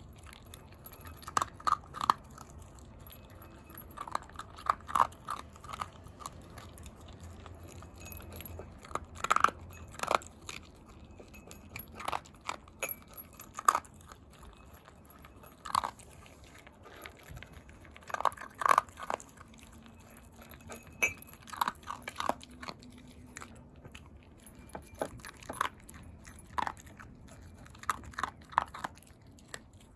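Shiba Inu eating dog food: irregular sharp crunching bites, often several in quick succession, with pauses of a second or more between bouts.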